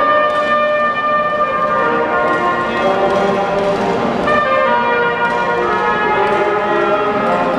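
A small live ensemble of trumpet, clarinet and trombone playing together, several held notes sounding at once and shifting every second or so.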